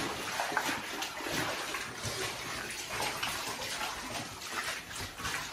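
Rubber boots wading through shallow water on a mine gangway floor: a steady run of sloshing, splashing steps.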